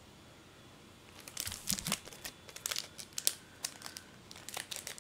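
Plastic card-sleeve packaging being handled, crinkling in irregular bursts of sharp crackles that start about a second in.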